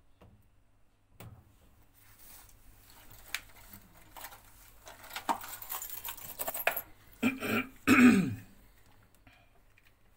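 Clicks and rustling of wires, plastic connectors and small tools being handled by hand. Near the end a man coughs twice, harshly, and these two coughs are the loudest sounds.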